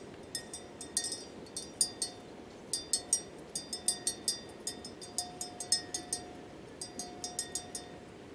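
Metal neck bell on a grazing water buffalo clinking irregularly, several light strikes a second, some strokes ringing on briefly.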